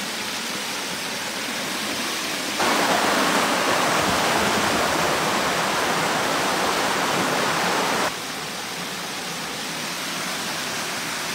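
Shallow stream rushing over a riffle, a steady white-water rush. It gets louder and closer from about two and a half seconds in, and drops back again about eight seconds in.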